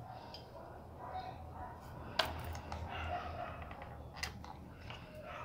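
Small handling noises of a glass jar and a hot glue gun, with a sharp click about two seconds in and another about four seconds in, over faint voices in the background.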